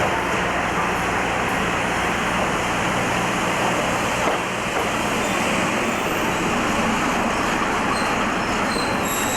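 Steady running noise of a train, an even rumble with a faint low hum, holding at one level throughout.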